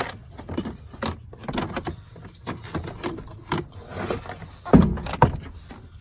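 Plastic interior door-trim panel of a Ford F150 being handled just after it has been pried off the door: scattered light clicks and rattles, with a louder knock and thud about five seconds in.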